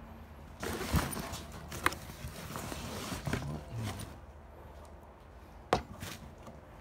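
Rustling and light clicks of bags, clothes and cardboard being pushed around with a metal bar, quietening after about four seconds, with one sharp knock near the end.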